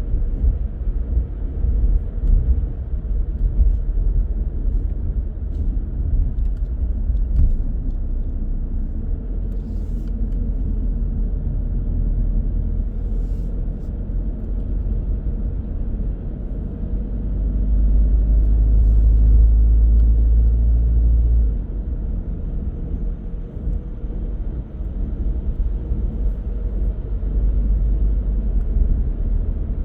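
Car driving on the road: a steady low rumble of tyre and engine noise. About two-thirds of the way through, a louder low drone builds for a few seconds and then cuts off suddenly.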